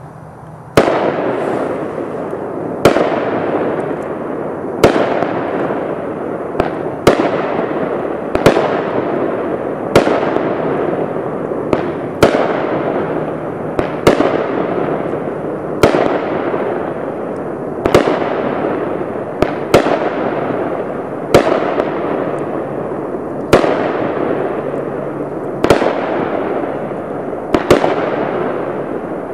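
Consumer 300-gram aerial repeater cake (Sweet 16, pink strobe) firing shot after shot, about one every two seconds. Each shot is a sharp bang followed by a sizzle that fades over a second or two, sometimes with a second smaller bang close behind.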